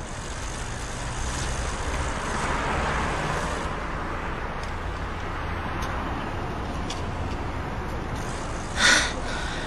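Steady road traffic noise, an even rushing sound that swells slightly a few seconds in, with a brief louder rush near the end.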